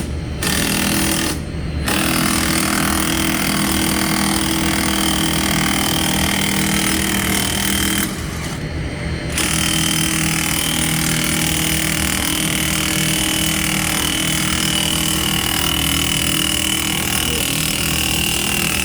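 Large machinery running steadily and loudly, with a low hum and a high whine. Its hiss cuts out briefly twice, a second or so in and again near the middle.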